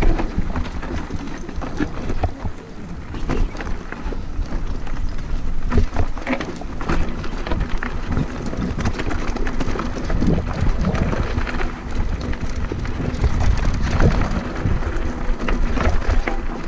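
Mountain bike riding downhill over rocky dirt singletrack: tyres crunching and rattling over stones and gravel, with frequent knocks and clatter from the bike and a steady low rumble.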